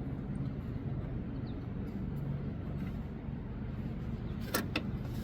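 A steady low background hum, with two short sharp clicks near the end from working the mower deck's engagement cable out of its plastic retaining clip.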